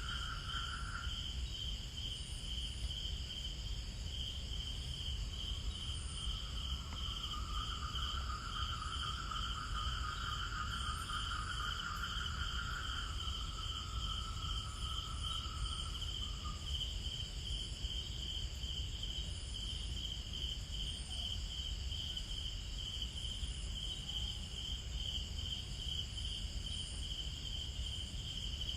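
Night forest insect chorus: a steady, fast-pulsing high trill with fainter high buzzing above it, over a low steady rumble. A second, lower trill comes in about five seconds in and stops about halfway through.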